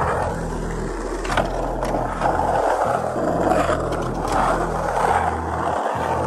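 Skateboard wheels rolling steadily with a continuous rough rumble, with a few light clicks from the board.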